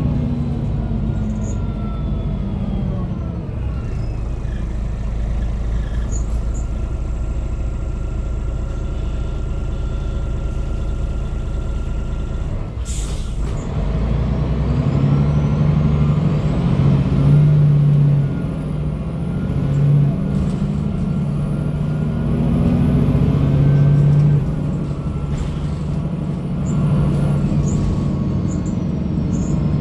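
MAN D2866 LUH24 diesel of a MAN NG313 articulated bus, heard from inside the passenger saloon. It winds down to a low run, a short hiss of air comes about halfway, then the engine pulls hard under acceleration and the ZF 5HP-592 automatic shifts up twice.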